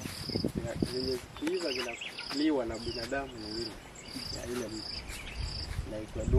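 An insect chirping in a steady rhythm, short high-pitched pulses about four every three seconds, with indistinct voices talking underneath.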